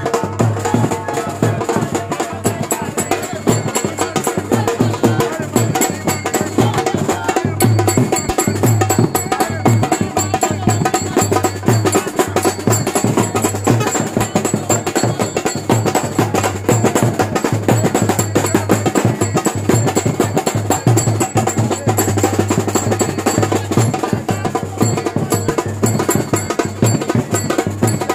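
Loud music with dense, fast percussion, the strikes running on without a break.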